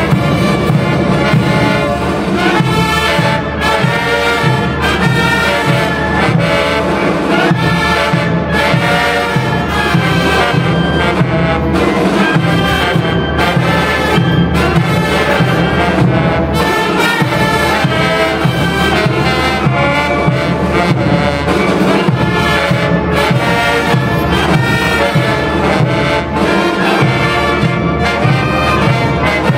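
Brass band playing: trumpets, saxophones, baritone horns and sousaphones over snare drums, bass drums and a drum kit keeping a steady beat.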